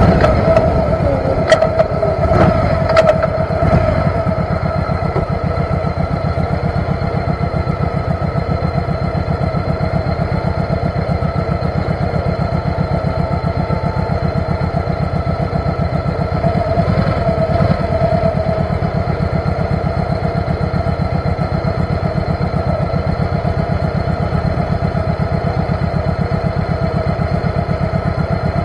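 Motorcycle engine settling to a steady idle, with a few sharp clicks in the first three seconds.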